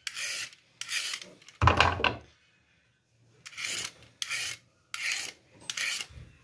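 Handheld vegetable peeler scraping the skin off a carrot in short repeated strokes, about seven in all, with a pause of about a second near the middle. The third stroke, about a second and a half in, is the loudest and ends in a knock.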